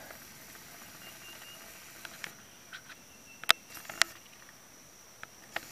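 Steady high-pitched insect drone in the woods, with a few sharp clicks, the loudest about three and a half and four seconds in.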